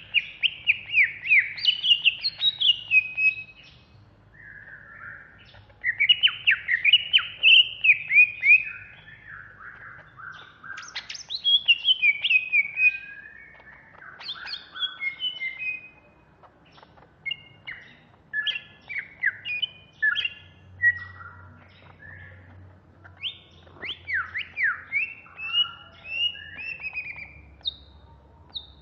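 Greater green leafbird (cucak hijau) singing loudly in fast, chattering phrases of quick sliding notes, broken by short pauses, in the frenzied 'ngentrok' style that bird-keepers prize.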